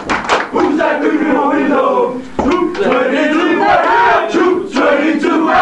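A group of young people chanting and shouting together in unison, with hand claps at the start and a few more claps later.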